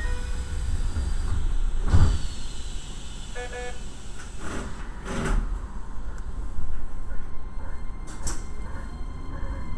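Low, steady rumble in the driver's cab of a Hokuso 7500-series electric train, with a short burst of electronic beeps from the cab about three and a half seconds in and a few sharp knocks, the loudest about two seconds in, as the driver moves the controller from brake to power.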